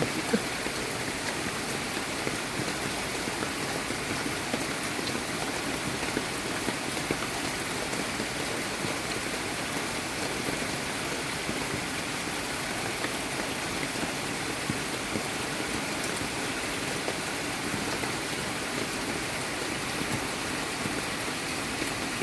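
Steady water noise, an even hiss like rain falling, with a few small spikes over it.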